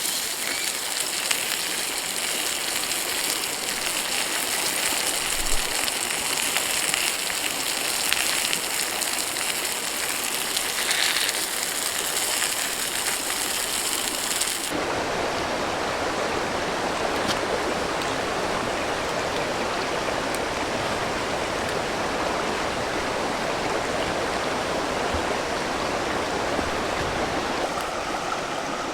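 A river stream rushing steadily. In the first half a brighter hiss with a steady high tone lies over it; this cuts off abruptly about halfway through, and the fuller rushing of the stream is left.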